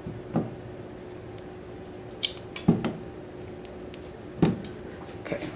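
Sticks of butter being broken by hand and dropped into a saucepan: several separate soft thuds and squishes against the pan. A faint steady hum runs underneath.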